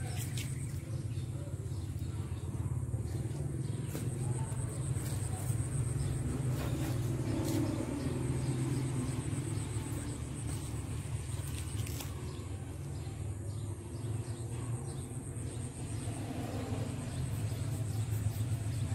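Steady low rumble with a faint, thin high-pitched whine held above it and a few soft clicks.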